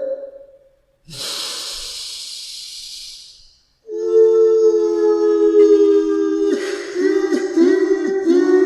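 Sound effect of a ghostly woman crying. A quavering wail fades out, then comes a long breathy inhale. About four seconds in, a new loud, sustained, wavering wail starts, with little sobbing catches in it later on.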